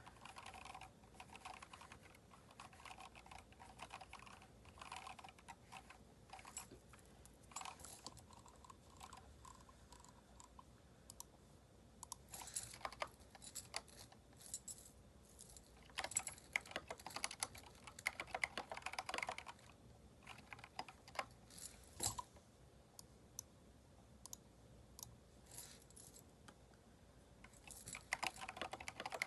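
Typing on a Keychron K4 mechanical keyboard fitted with replacement keycaps: irregular keystroke clicks, light and sparse at times, with faster, louder runs of typing a third of the way in, in the middle and near the end.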